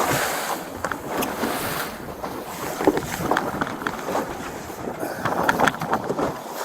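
Wind buffeting the microphone out on open water, with gusting, uneven noise and a few small knocks.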